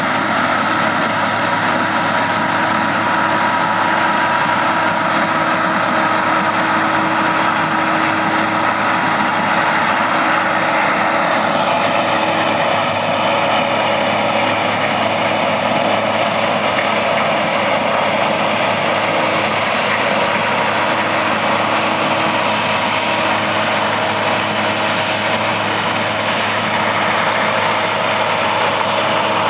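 Massey Ferguson 9895 combine running steadily while harvesting corn, an even engine and machinery drone with a shift in its higher tones about twelve seconds in.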